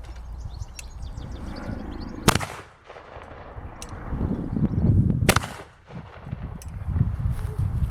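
Gwaza 10750 gas-operated bird scarer (a propane gas cannon) firing: two sharp, loud bangs about three seconds apart.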